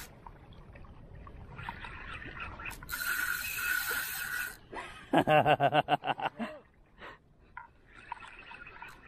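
Spinning reel being cranked to wind in line, its gears whirring. A little past halfway comes a fast run of about ten loud clicks, the loudest part.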